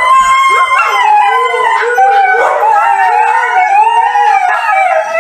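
Husky howling: long, wavering howls that slide slowly up and down in pitch with hardly a break.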